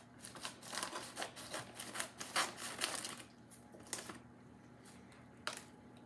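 Packaging crinkling and rustling, with a quick run of light crackles and taps, as a second portion of an ingredient is emptied into a casserole dish; a single tap follows near the end.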